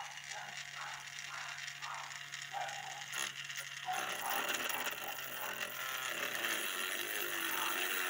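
Electric rotary tool running steadily as it grinds away the aluminium of a fan motor's housing, clearing the old sleeve-bushing seat so a ball bearing can be fitted.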